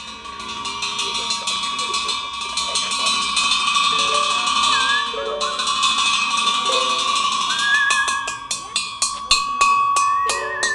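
Ringing metal percussion struck rapidly over and over, holding one bright pitch. Near the end the strokes slow to a few distinct hits a second.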